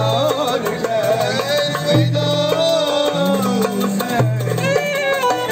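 Street band playing Middle Eastern-style music. Hand-held frame drums with jingles beat a steady rhythm under a wavering, ornamented melody line, and held low bass notes change about once a second.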